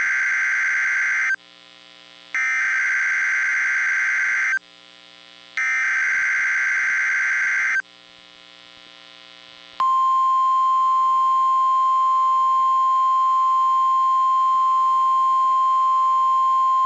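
Emergency Alert System SAME header on NOAA Weather Radio: three bursts of warbling digital data tones, each about two seconds long, with the first already under way. A little over halfway through, a single steady, loud attention tone begins and holds, the NOAA Weather Radio 1050 Hz alert tone that comes before the spoken alert.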